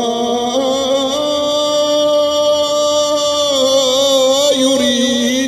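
A man's voice chanting a Quranic verse in melodic Arabic recitation, drawing out long held notes that waver slightly in pitch.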